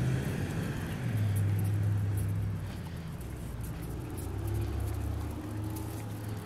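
Car traffic on the adjacent street: a low engine rumble that swells about a second in and again midway, then fades.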